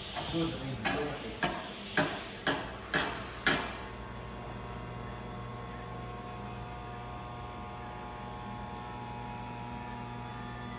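A series of about six sharp knocks, roughly two a second, over the first three and a half seconds. After the knocks, a steady electrical hum with a low drone and a few fixed tones above it.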